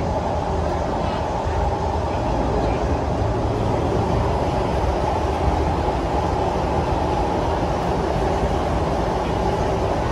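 Singapore MRT train running, heard from inside the carriage: a steady low rumble with a constant mid-pitched hum over it.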